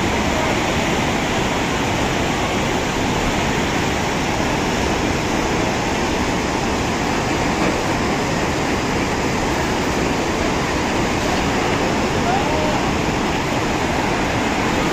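Steady rushing of a swollen, muddy river in flash flood after a cloudburst, a dense, unbroken wash of water noise.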